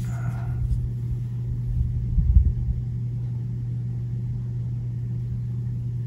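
Steady low hum with a low rumble beneath it, and a few soft bumps about two seconds in.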